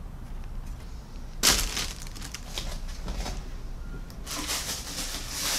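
Plastic model-kit sprues being handled and put down on the work mat, with a sudden clatter about a second and a half in, then plastic rustling, and more rustling near the end.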